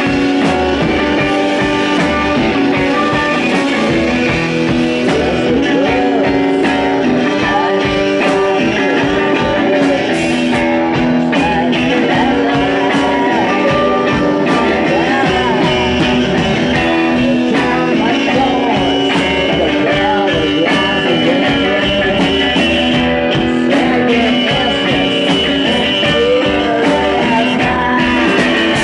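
Live rock band playing loud and steady, electric guitar to the fore over a driving drum beat.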